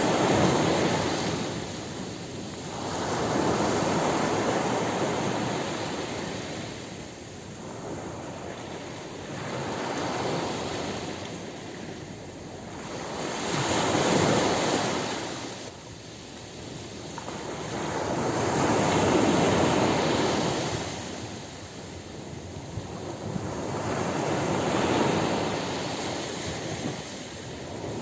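Ocean surf breaking on a beach, each wave swelling in and washing back out every four to six seconds.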